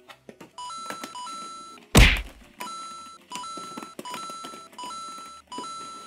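Simple electronic background tune, a short phrase of two steady beeping notes repeating about every three-quarters of a second, with a single loud thunk about two seconds in.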